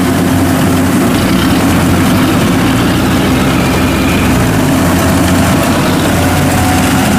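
Crawler rice combine harvester's diesel engine running steadily under load as it cuts rice, with the engine note sagging briefly about four seconds in.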